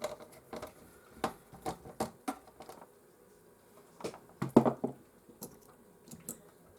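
Scattered small clicks and taps of a screwdriver and plastic and metal parts as a PlayStation 4 console is taken apart, with a busier run of knocks about four to five seconds in.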